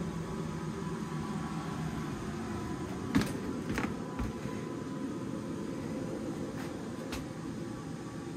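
Steady mechanical hum inside a yacht's galley, broken by a few sharp knocks: a loud one about three seconds in, two more within the next second, and two softer ones near the end.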